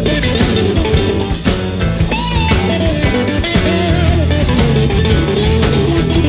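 Background rock music: electric guitar over bass and a steady drum beat.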